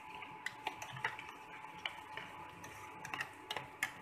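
A metal spoon clinking and scraping against a steel bowl while stirring egg omelette batter with chopped vegetables: light, irregular ticks, with a quick cluster of them near the end.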